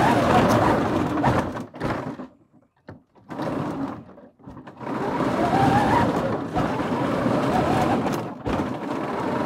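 Home-built 3D printed ride-on tank driving over leaf litter: its tracks and drive clatter and grind, stop twice in the first few seconds, then run on steadily with a faint whine above. The tank is running damaged after off-road testing, with too much of it broken.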